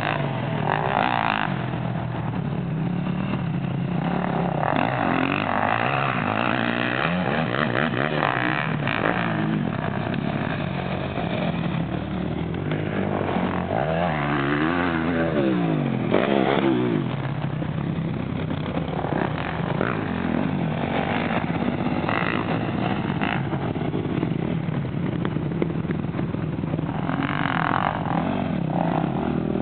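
Dirt bike engine revving and easing off repeatedly as the rider works the throttle, its pitch rising and falling, most clearly about halfway through.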